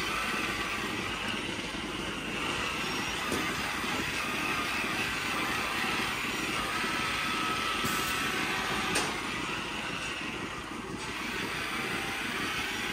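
Milking parlour machinery running with a steady mechanical hum and hiss, and one sharp click about nine seconds in.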